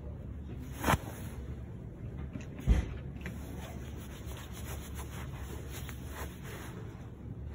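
Handling noise on the phone's microphone: rubbing and rustling against the phone, with two sharp knocks about one and three seconds in, the second the louder.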